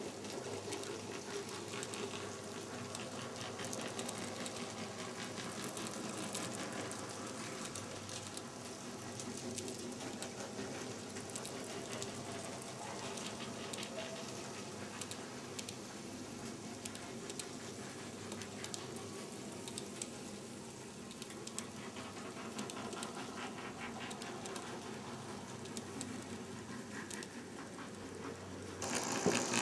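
Z scale model freight train rolling past on its track: the small metal wheels running over the rails give a steady fine clicking rattle. It turns abruptly louder and brighter in the last second.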